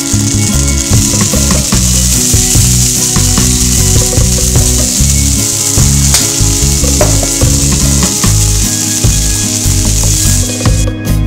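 Scallops searing in hot oil in a frying pan: a steady sizzle with scattered crackles and pops. The sizzling cuts off suddenly near the end.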